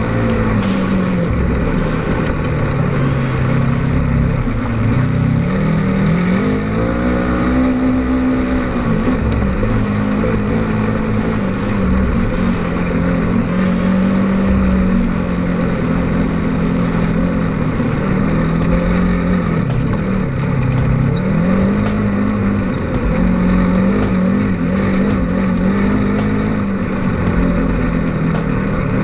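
Polaris RZR 900 side-by-side's twin-cylinder engine running under load, its pitch repeatedly rising and falling as the throttle is worked.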